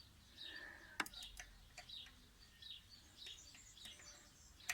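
Small birds chirping repeatedly in the background, with a sharp click about a second in, another at the end, and a few light ticks between: a small wrench turning the cone on a bicycle rear hub axle.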